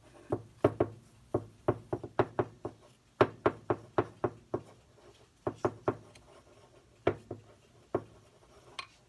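Small glass bowl knocking as fingers knead a cornstarch-and-conditioner slime in it. A run of sharp knocks, about three a second, comes in short groups with brief pauses.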